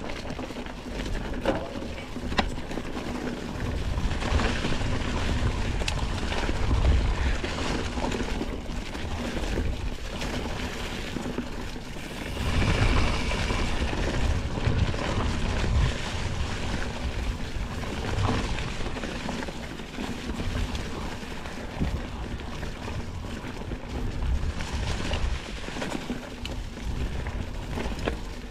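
Mountain bike rolling along a forest singletrack covered in fallen leaves: tyre noise over the leaves, with frequent knocks and rattles from the bike over roots and bumps. Gusts of wind buffet the camera microphone as low rumbles.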